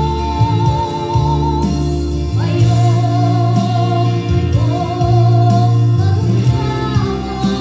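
Christmas song sung over steady instrumental backing. A voice holds long notes with vibrato and moves to a new held note about two and a half seconds in.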